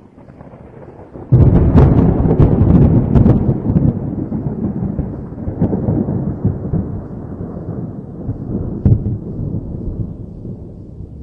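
A thunderclap: a sudden loud crack about a second in, followed by crackling and a long rolling rumble that slowly dies away, with another sharp crack near the end.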